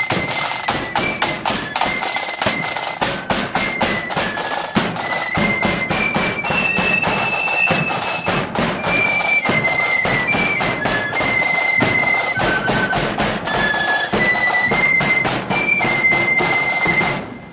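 Marching flute band playing a tune: many flutes carrying a high melody in unison over rapid snare-drum rolls and bass-drum beats. The music stops near the end.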